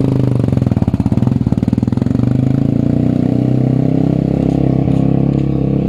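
Motorcycle engine running at a steady low speed, with a rapid, even pulse.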